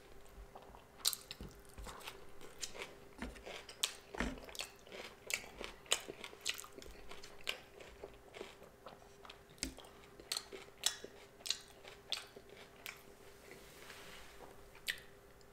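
Close-miked eating sounds: a person chewing and biting food, with irregular crisp, crunchy clicks one to three times a second.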